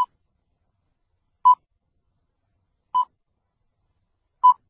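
Countdown beeps of an animated film-leader intro: four short beeps of the same pitch, evenly spaced about a second and a half apart, one per number.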